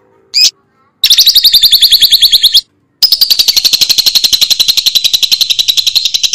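Lovebird 'ngekek': a long, rapid, high-pitched chattering trill of about a dozen notes a second. It opens with a short chirp, the trill starts about a second in, breaks off briefly just before the halfway point, then resumes and runs on.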